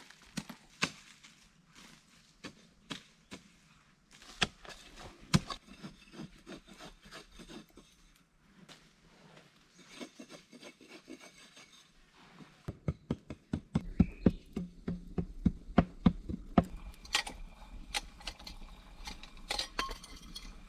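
Irregular knocks, taps and scraping of wood and tools worked by hand, sparse at first, then a quicker run of louder taps in the second half.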